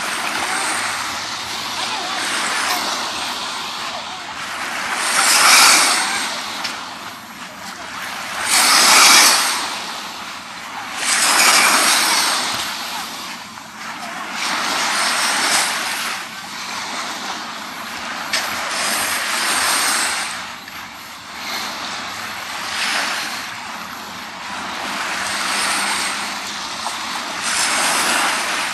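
Sea waves washing onto the beach, a hissing surge that rises and falls every few seconds, with the biggest swells about a third of the way in.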